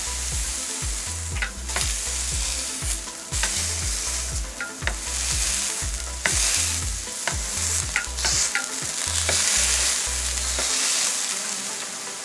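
Two thin beef smash-burger patties sizzling hard on a hot flat-top griddle while metal spatulas press them flat, with scattered clicks and scrapes of steel on the steel plate. The pressing and clicking stop shortly before the end and the frying sizzle carries on.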